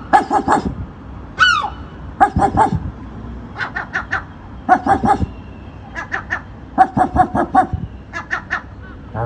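Seagull giving bark-like calls that sound like a dog. The calls come in quick bursts of four to six short yaps, about one burst a second, with one drawn-out call falling in pitch near the start.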